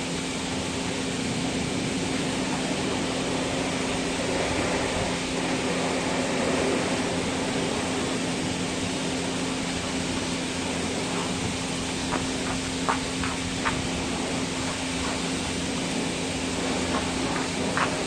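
Self-service car wash foam brush running, with a steady hiss and hum of the bay's pressurised foam feed as the brush scrubs a car's body. A few short sharp clicks come about twelve to fourteen seconds in and again near the end.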